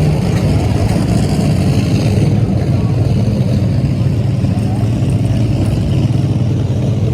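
A race engine idling loudly and steadily, holding one even pitch with no revving.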